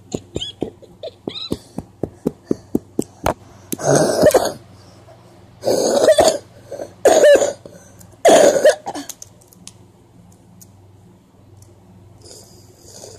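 A rapid run of sharp clicks, about four a second, then a person close to the microphone coughs hard four times.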